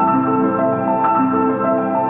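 Background music: soft, slow ambient keyboard music with notes held and changing about every half second.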